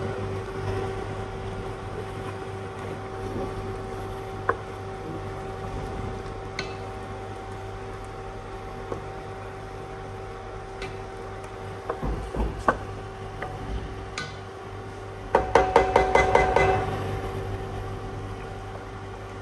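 Wooden spoon knocking and scraping against a pot and a plastic jar as red palm oil is scooped in and stirred, a few scattered knocks and then a brief flurry of quick knocks about two-thirds of the way through, over a steady hum.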